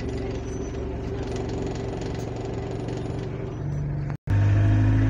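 City bus engine running, heard from inside the passenger cabin as a steady low drone. About four seconds in the sound breaks off for a moment and returns louder, with a stronger low hum.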